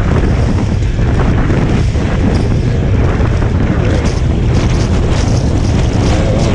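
Dirt bike engine running at speed, largely buried under a loud, steady rumble of wind buffeting the on-board camera's microphone.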